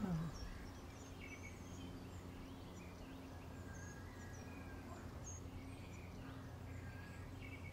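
Faint outdoor ambience with small birds chirping now and then, over a low steady hum.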